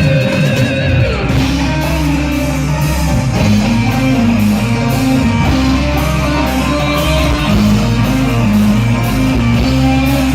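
Live band music played loud through a PA sound system: guitar and a moving bass line over a steady drum beat.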